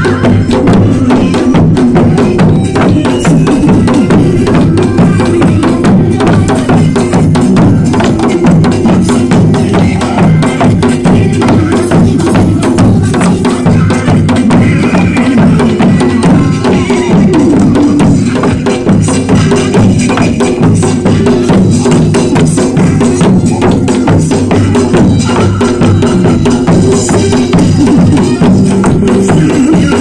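Korean folk dance music with a steady beat, and sogo hand drums and barrel drums beaten along with it by the dancers.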